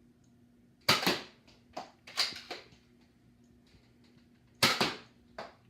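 Nerf Disruptor dart blaster firing twice, about four seconds apart, each shot a sharp clack, with shorter plastic clacks in between.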